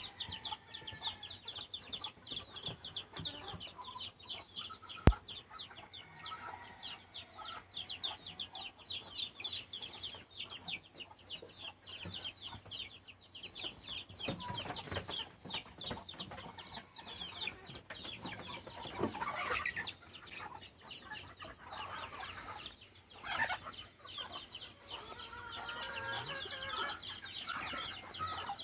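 Gamefowl chickens clucking and calling, over a rapid, high-pitched chirping that fills the first half. A single sharp click about five seconds in.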